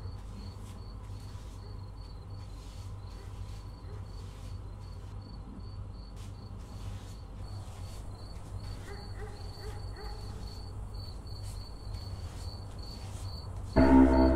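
Crickets chirping steadily at night, an even high chirp about three times a second, over a low steady hum. Loud music comes in just before the end.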